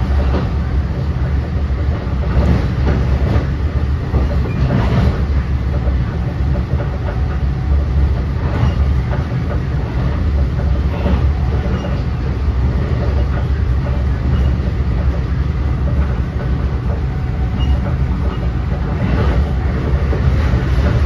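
Inside an NJ Transit Multilevel commuter coach running at speed: a steady low rumble of wheels on rail, with clacks and clatter from the wheels, a cluster a few seconds in and another near the end.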